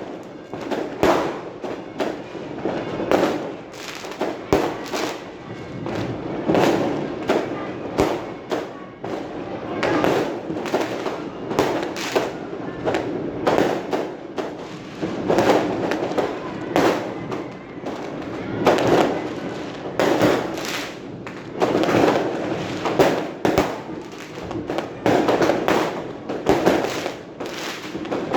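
Fireworks exploding in a dense, continuous barrage: many sharp bangs a second, overlapping into a rumbling din with no pause.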